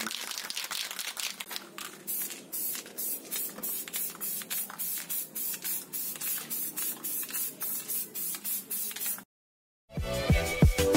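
Aerosol spray can of flat black paint spraying: a steady hiss for about two seconds, then quick short bursts, several a second, until it cuts off about nine seconds in. Music starts near the end.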